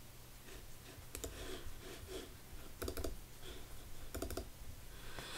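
A handful of faint computer mouse clicks, two of them coming as quick pairs like double-clicks, over a faint steady low hum.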